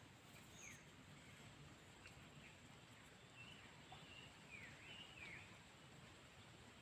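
Near silence with faint, short bird chirps: one just under a second in and a cluster of several between about three and five and a half seconds in.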